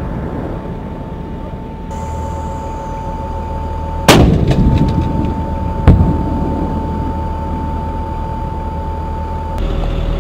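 M1128 Stryker Mobile Gun System's 105 mm cannon firing: a very loud blast about four seconds in with a long rolling rumble, then a second sharp report about two seconds later.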